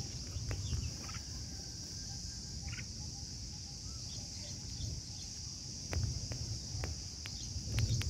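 Steady high-pitched insect drone with a few short, faint bird chirps. A couple of soft knocks with a low rumble come about six seconds in and again near the end.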